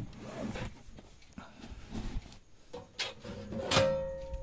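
Handling noises: rubbing and light knocks, then a sharp knock near the end followed by a ringing tone that fades over about a second and a half.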